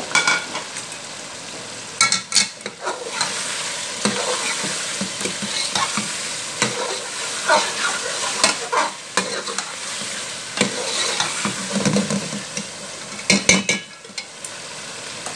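Chicken pieces sizzling and frying in a spicy onion-tomato masala in an aluminium pot as they are browned. A steel ladle stirs them, scraping and knocking against the pot several times over a steady sizzle.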